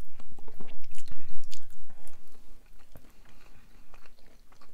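Chewing and biting into homemade pizza close to the microphone, a quick run of short mouth sounds, loudest in the first two and a half seconds and quieter after that.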